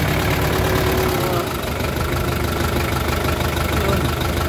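Hyundai Starex engine idling steadily, heard from beneath the raised van, with a faint steady whine joining in about a second and a half in.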